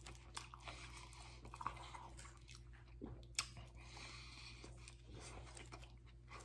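Faint chewing and biting as a man eats, with a few soft mouth clicks scattered through.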